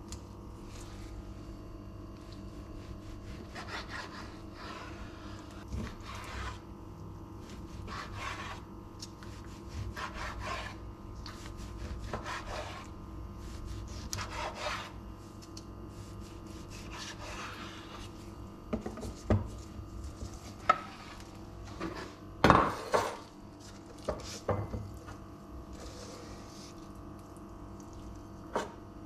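Chef's knife slicing raw chicken breast on a wooden cutting board: drawn cuts about every two seconds, the blade rubbing on the wood, then sharper knocks of the blade on the board in the second half. A steady low hum runs underneath.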